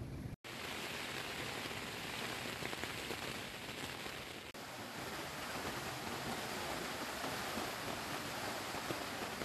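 Steady rain falling on a tent's fly, heard from inside the tent as an even hiss.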